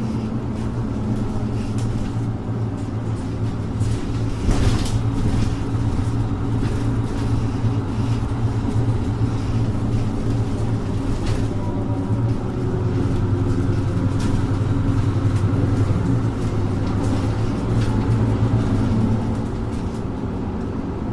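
Mercedes-Benz Citaro 2G city bus's OM470LA inline-six diesel running while under way, heard from aboard the bus: a steady low drone that swells louder through the second half. A single sharp knock about four and a half seconds in.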